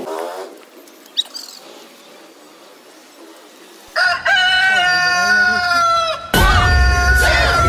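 Faint outdoor background, then about four seconds in a loud, long, drawn-out crowing call cuts in abruptly. About two seconds later a loud track with a steady deep bass beat starts and keeps going.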